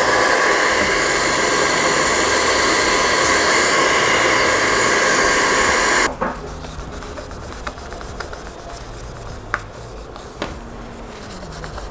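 Handheld BaByliss hair dryer running steadily, blowing onto a freshly applied vinyl phone skin, then switched off abruptly about six seconds in. After that a cloth rubs over the phone, with a few faint ticks.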